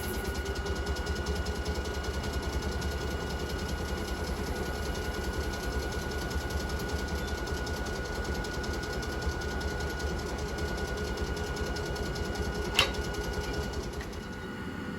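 Onboard auxiliary machinery of a Hakone Tozan Railway Moha 1/2 electric railcar running: a steady hum with a fast, even mechanical pulsing that rises in pitch as it comes up to speed, with one sharp click shortly before it drops away near the end.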